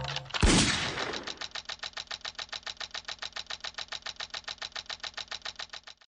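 A single revolver gunshot about half a second in, followed by rapid, even clicking, about ten clicks a second. The clicking is a computer keyboard key held down and auto-repeating, and it cuts off near the end.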